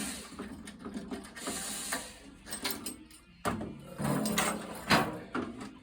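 A wooden drum shell being handled and rocked on a flat surface, giving irregular knocks and clatter with a few sharper thuds about three and a half and five seconds in. It is tipping on a low spot in its edge, a sign that the factory edge is not level.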